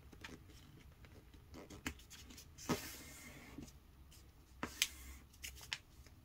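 A sheet of paper being folded and creased by hand on a tabletop: faint rustling and sliding of the paper, with a few short, sharper crinkles a little under three seconds in and near five seconds.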